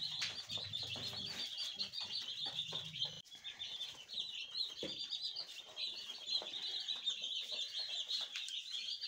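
A large flock of day-old chicks peeping continuously in a dense chorus of short, high chirps. A low hum underneath stops about three seconds in.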